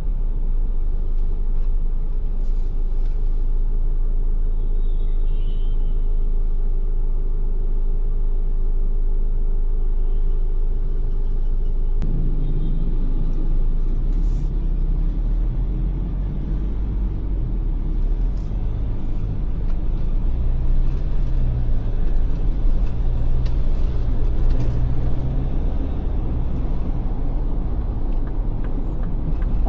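Ford Everest SUV on the move: a steady low rumble of engine and road noise. About twelve seconds in a steady hum cuts off and the engine note starts to rise and fall.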